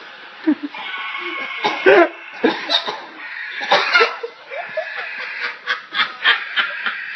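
A man laughing hard in several bursts of quick, breathy chuckles, at times breaking into rapid runs of pulses.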